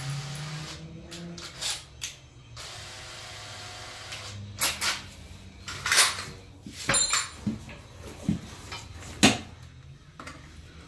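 Scattered knocks and clunks of metal parts being handled: a rear differential and its steel mounting bracket being shifted and lined up, with tools clinking, about a dozen separate strikes.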